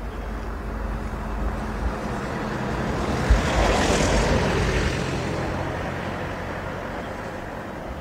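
A vehicle passing by: a noisy rush that grows to its loudest about four seconds in and then fades, with low thumps of wind on the microphone.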